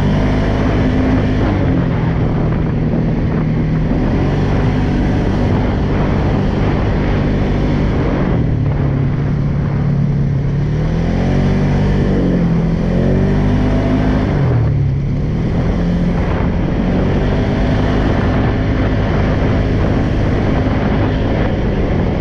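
Polaris Sportsman 570 ATV's single-cylinder engine running under way on a trail, its pitch rising and falling several times with the throttle and dropping sharply about fifteen seconds in.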